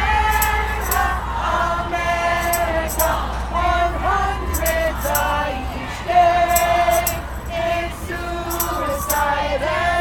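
A group of women singing a song together in unison, with long held notes. A light jingling ticks along in time.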